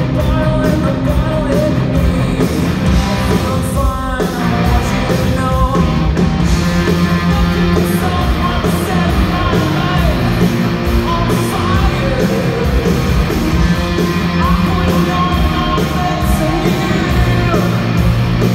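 Rock band playing live: electric guitars and a drum kit with cymbals, with a singer's voice coming in at times, heard loud from the audience of a large hall.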